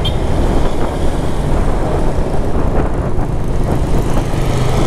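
Motorcycle on the move, heard from a helmet camera: steady wind rush on the microphone over the low hum of the engine.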